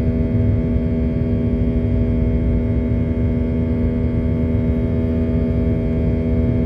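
Steady cabin noise inside a Boeing 737-800 airliner: a low rumble with a constant hum.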